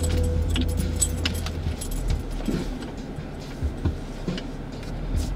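Off-road vehicle heard from inside, its engine rumbling low and then dropping away about two seconds in. Loose things in the cabin clink and rattle over and over as it jolts over rough ground.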